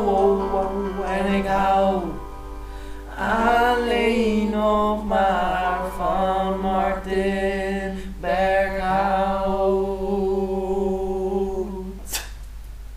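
Young men singing a slow melody in long held notes, without clear words. A sharp click near the end as the singing stops.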